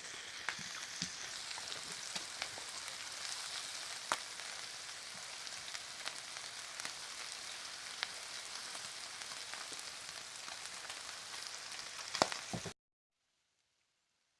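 Sleet, icy snow falling together with water, pattering as a dense steady crackle with scattered sharper ticks. It stops abruptly near the end, right after a few louder ticks.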